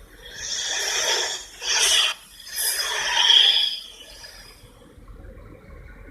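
Giant anaconda creature sound effect: three loud breathy hisses, the third the longest, followed by a quieter, lower rumbling breath.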